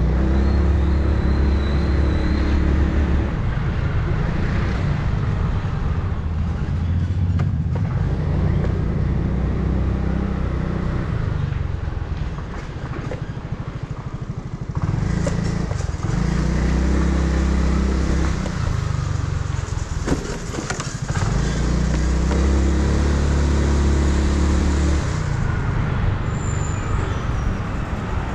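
Yamaha R6 sport bike's inline-four engine with an Akrapovic exhaust, heard from the rider's helmet: the engine note climbs, holds and drops several times as the bike accelerates and eases off, over a rush of wind and road noise.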